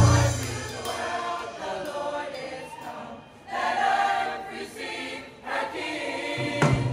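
School choir singing a Christmas song, the voices mostly without the band's low bass and drums, which drop out about half a second in and come back in near the end.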